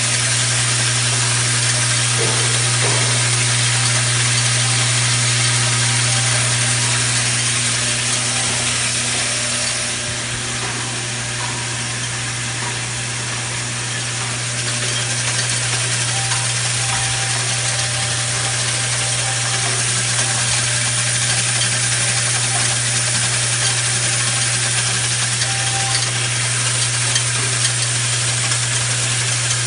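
Washer inspection and sorting machine running: a steady low hum with an even hiss over it, a little quieter for a few seconds midway, and faint light clicks of the metal washers.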